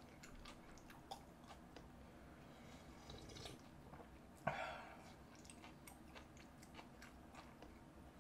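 Faint, close-up chewing of chewy guobaorou (glutinous-rice fried pork), with small wet mouth clicks, and one short, louder mouth sound about halfway through.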